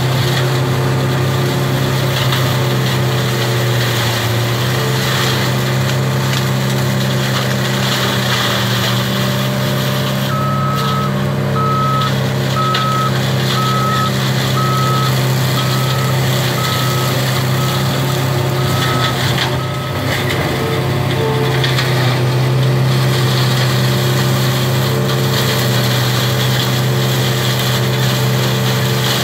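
Caterpillar 226B skid-steer diesel engine running steadily under load, driving a hydraulic front flail shredder that is cutting through tall reeds. From about a third of the way in, a reversing alarm beeps evenly, roughly once or twice a second, for about nine seconds as the loader backs up.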